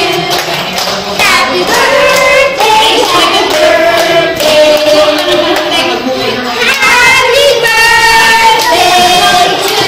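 A group of voices, children's among them, singing a birthday song together, with some hand clapping.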